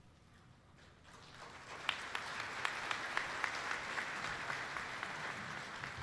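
Audience applauding, building up from about a second in, with a few sharp single claps standing out.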